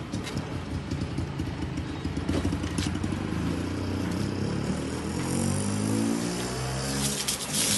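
Manual push sweeper rolling and brushing over rough concrete, a rattly noise, with a motor vehicle engine running nearby whose pitch falls and rises in the second half.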